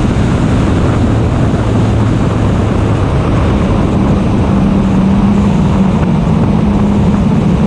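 Race car engine running at speed, heard from a hood-mounted camera under heavy wind rush; the engine note steps up to a higher pitch about three and a half seconds in.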